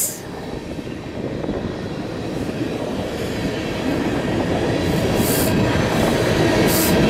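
Freight cars of a slow-moving BNSF train rolling past on the rails, a dense steady rumble of wheels on track that grows gradually louder, with two brief hissing bursts about five and seven seconds in. The train's slow pace is taken for a heavy load.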